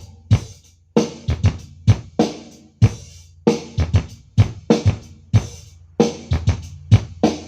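Drum-heavy music played loud through an AD Nux 15A active powered speaker: kick and snare hits about twice a second over a steady low bass. The speaker's plastic molded cabinet vibrates and buzzes under the bass hits, which the owner takes as a sign that the box can't cope with the driver's force.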